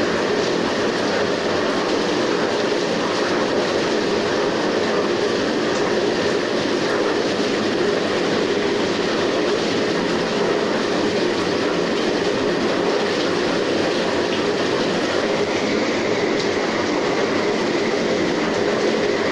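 Whirlpool bathtub with its jets on: the pump running steadily and the water churning and bubbling in the tub.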